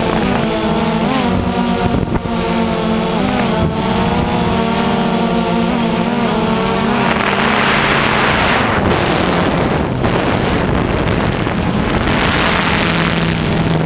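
DJI Phantom 2 quadcopter's four motors and propellers whining in flight, heard from the camera mounted on the drone, the pitch wavering up and down as the motors change speed. Rushes of wind noise on the microphone come in about seven seconds in and again near the end, partly covering the whine.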